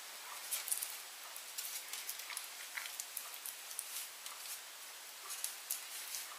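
Faint, irregular small clicks and rustles of hands setting filled pasta tubes upright inside a steel ring mould on a paper-lined baking tray, over a steady hiss.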